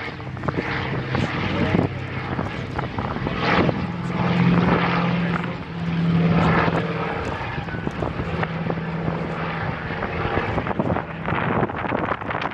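Douglas C-47 Dakota's twin radial piston engines droning steadily as the plane flies past, loudest about four to seven seconds in, then easing off.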